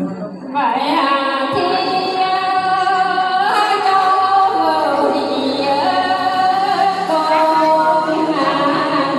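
A woman singing a Mường folk song (hát Mường) solo, in long held phrases that slide between notes; the singing starts about half a second in.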